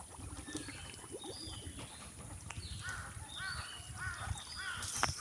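Birds calling, with scattered high chirps and, from about halfway on, a short call repeated roughly twice a second over a low rumble.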